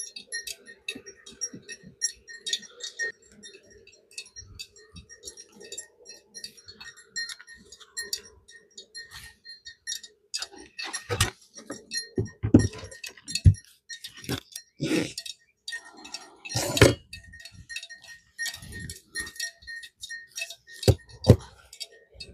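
Honey bees buzzing in a steady hum at an open hive through the first half, with light, high ringing clinks throughout. In the second half come a series of sharp knocks and thuds, the loudest sounds here.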